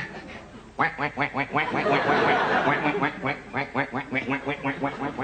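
A man imitating a duck, giving a fast, unbroken run of quacks that starts about a second in.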